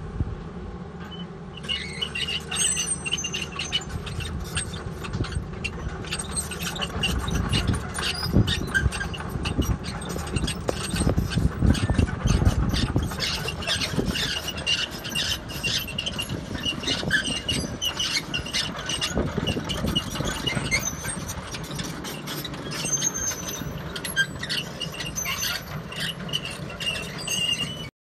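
Volvo long-reach excavator at work on a soil slope: the diesel engine runs under load while the machine gives off repeated high-pitched metal squeals and sharp clicking and knocking. The sound cuts off suddenly near the end.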